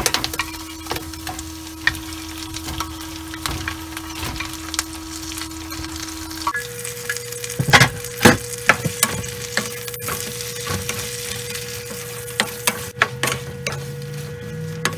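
Whole raw shrimp sizzling and crackling in hot garlic butter in a nonstick frying pan, with a wooden spatula knocking and scraping against the pan as they are stirred; the loudest knocks come around eight seconds in. A steady hum runs underneath and steps up in pitch a little past halfway.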